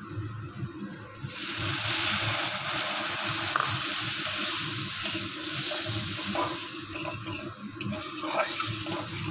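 Water poured into a wok of spice paste fried in hot oil, giving a loud rushing hiss and sizzle from about a second in that fades after about five seconds. A spatula then stirs and scrapes the thin gravy, with a few light clicks near the end.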